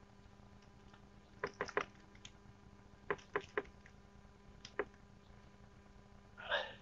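A few light clicks and knocks in small clusters of two or three, with a short rustle near the end.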